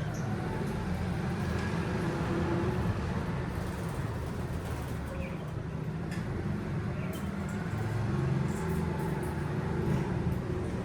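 Steady low background rumble with a few faint, short bird chirps scattered through it.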